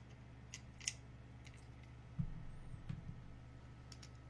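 Faint small clicks and a couple of soft knocks as an Arduino circuit board and small parts are handled on a tabletop.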